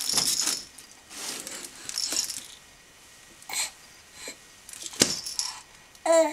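Soft baby toys being shaken and crinkled by a baby, making bursts of rustling and jangling, with a couple of sharp clicks. Near the end there is a short baby squeal.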